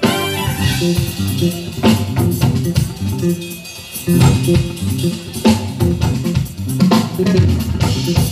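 Live jazz band music: an electric bass guitar plays a moving line of low notes over drums, with sharp drum hits every second or so.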